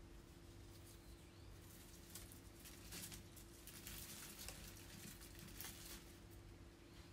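Faint, dry crinkling rustle of dried hydrangea and dried flower stems being handled and pushed into a vase, a few soft rustles through the middle, over a low steady hum.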